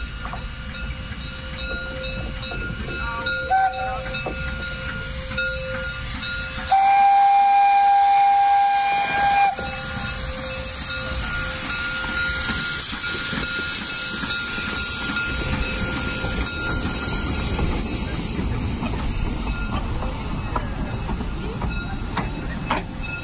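Narrow-gauge steam locomotive running past with its train, giving a short whistle toot about three and a half seconds in, then a loud whistle blast of about three seconds starting about seven seconds in. After the blast a steady steam hiss runs over the low running noise of the train.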